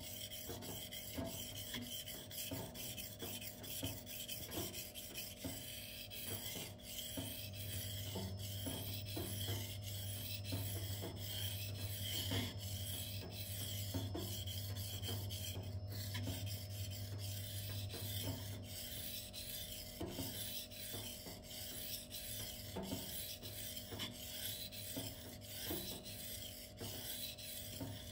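Steel knife blade scraping back and forth over a Shapton 1000-grit whetstone in steady, repeated strokes, sharpening the M390 edge.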